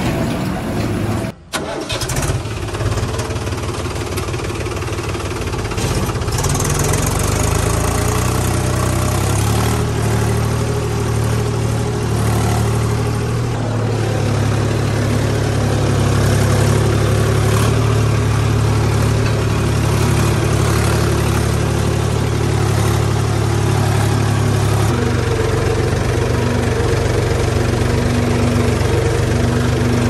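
A vehicle engine running steadily, with a brief dropout just after the start and its note shifting about halfway through and again near the end.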